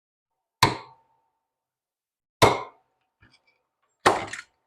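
Hammer blows on a rivet setter, setting a rivet through leather: three sharp metallic knocks, each with a short ring, spaced about a second and a half to two seconds apart.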